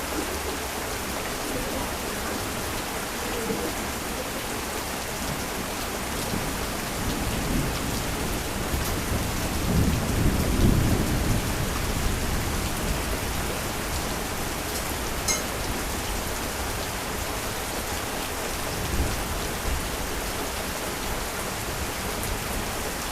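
Heavy rain falling steadily, with a roll of thunder rumbling up about seven seconds in, loudest around ten seconds and fading away a couple of seconds later.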